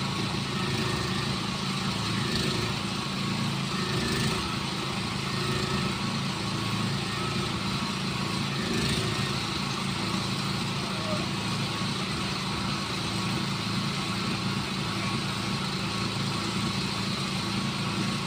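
Small portable generator's engine running steadily under constant load.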